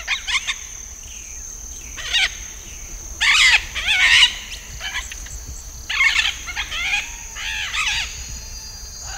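Yellow-collared macaws calling: several bursts of harsh, raspy, croaking calls, loudest three to four seconds in. A steady high-pitched tone runs underneath.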